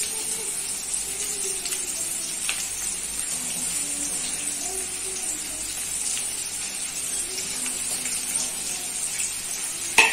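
Chopped onions and curry leaves sizzling in hot oil in a kadhai on high flame, a steady hiss. Near the end a spatula knocks against the pan as stirring begins.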